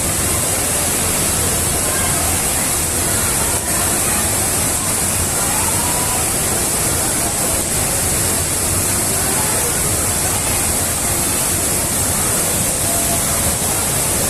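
Steady rush of falling water from a waterfall, unbroken throughout, with faint voices of people mixed in behind it.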